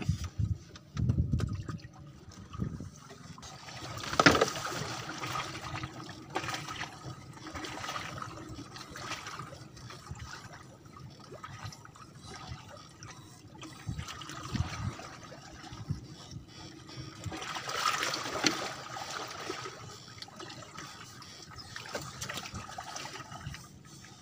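Water lapping and trickling around a floating bamboo raft, rising and falling unevenly, with louder swells about four seconds in and again near eighteen seconds.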